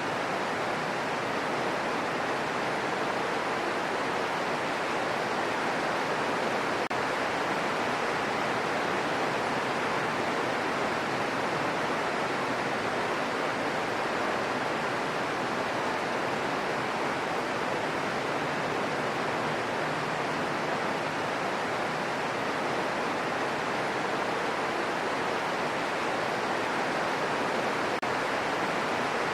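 Gentle, steady rain falling in a forest: an even, unchanging hiss.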